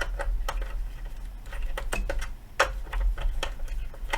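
Irregular clicks and light clatter of test leads and clips being handled while a 10 amp bench power supply is hooked up to a car amplifier, over a low steady hum.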